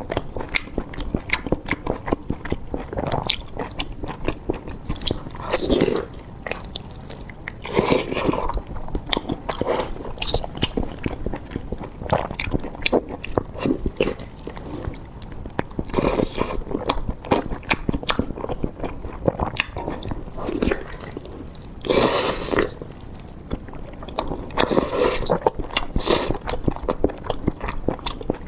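Close-miked wet eating sounds: biting, sucking and chewing on a piece of food thick with spicy sauce. Dense lip smacks and clicks run throughout, with several louder, longer wet sucking noises spaced through it.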